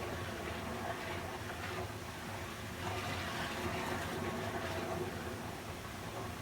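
Running water flowing steadily as sleep white noise, a continuous rush with small surges and a faint steady hum underneath.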